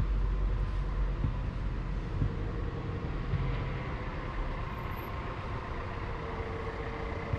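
Steady low rumble of motor traffic, with a faint engine hum.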